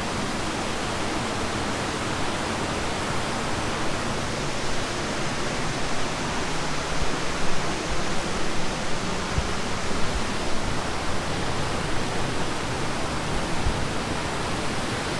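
Steady rush of the Devkund waterfall running in heavy monsoon flow, with a few brief low thumps around the middle.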